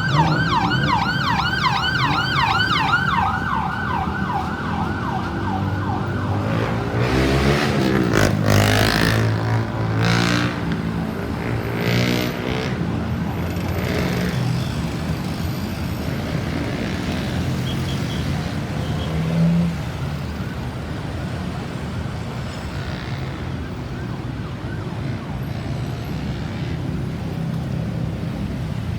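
Ambulance siren on a fast yelp, about four rising-and-falling wails a second, which cuts off about six seconds in. Road traffic follows: a vehicle passes loudly a little later, then a steady traffic hum.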